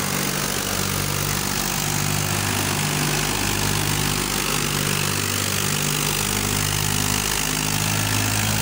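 Al-Ghazi tractor's diesel engine running steadily under load, driving a PTO thresher, with an even hiss from the threshing machine over the engine hum.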